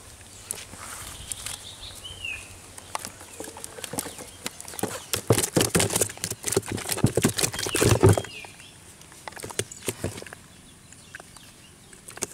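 Live fish flapping in a plastic bucket, slapping wetly against the sides and against each other in a rapid flurry that is strongest from about four to eight seconds in.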